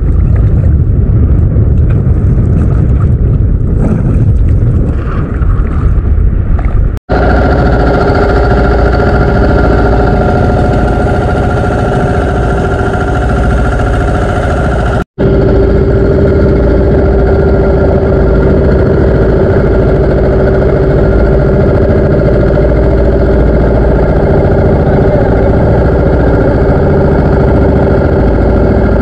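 Wind rumbling on the microphone over shallow sea water for the first few seconds, then, after a cut, the steady drone of a motorized outrigger boat's (bangka's) engine running, with a short break at another cut about halfway through.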